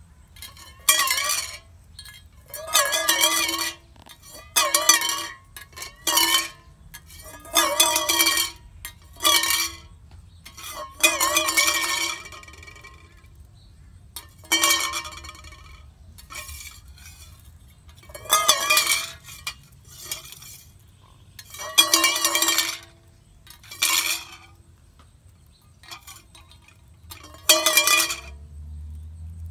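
Stainless steel bowl scraping and clanging on concrete as a rainbow lorikeet pushes and tips it with its beak. There are about a dozen separate bursts of metallic ringing, each with a slightly wobbling pitch.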